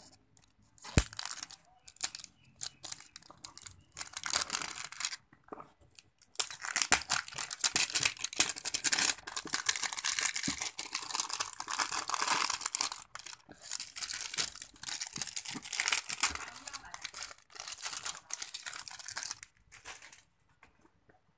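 Clear plastic shrink-wrap being torn and peeled off a phone's cardboard box, crinkling and crackling. It comes in short bursts at first, then runs almost without a break for the middle and latter part.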